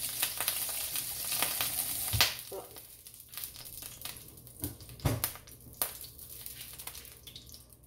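Olive oil sizzling and crackling in a hot nonstick frying pan, loudest for the first two seconds and then thinning to a faint crackle. Two sharp knocks, about two and five seconds in.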